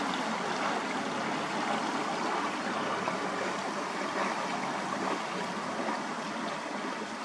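Fast-flowing tidal river water rushing steadily past the bridge, an even, unbroken rush.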